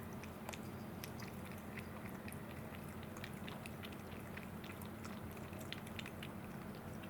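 A kitten lapping water, a quick run of small wet clicks at about three or four a second.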